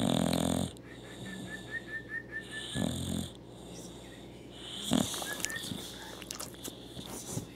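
A sleeping dog snoring: three loud breaths, each about two and a half seconds apart, with a faint run of short high squeaks between the first two.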